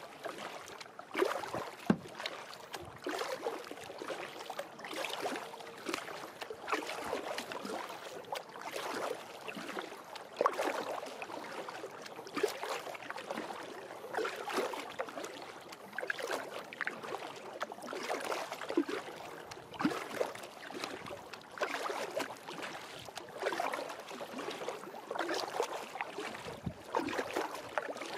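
Small waves lapping and splashing irregularly against the hull of a Future Beach Adventure 8.6 kayak, a steady run of uneven little slaps.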